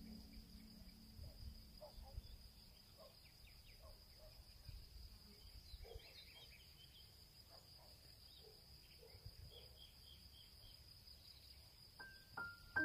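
Faint forest ambience: a steady high-pitched insect drone with scattered faint chirps. Sustained music tones come in near the end.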